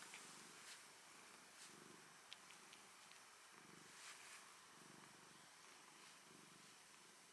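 Cat purring quietly, a low rumble that swells and fades about once a second with its breathing.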